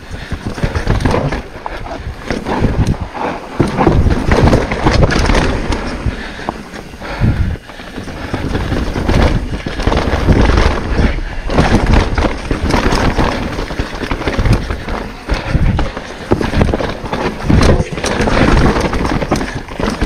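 Mountain bike descending a rough dirt singletrack at speed: tyres rumbling over dirt, roots and rock, with irregular thumps and rattles from the bike as it hits bumps.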